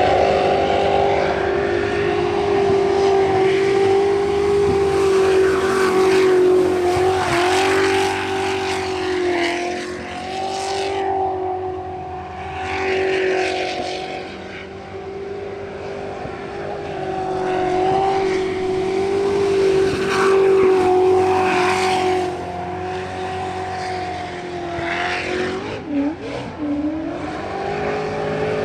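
Jet sprint boat engine running flat out at high, nearly constant revs through a timed run, with brief dips in pitch and loudness swelling and fading as the boat moves around the course.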